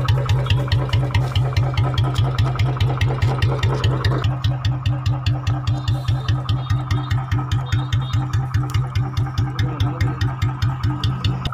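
Royal Enfield Bullet 350's single-cylinder engine idling with an even, rapid thump through its long chrome exhaust, set up for a heavy sound.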